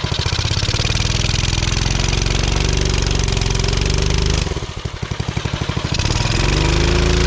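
Hisun 196cc single-cylinder four-stroke engine on a mini bike, revved up and held, dropping back to a pulsing idle about four and a half seconds in, then revved again near the end. The engine is on an untuned VM22 carburettor and sounds bad to the owner.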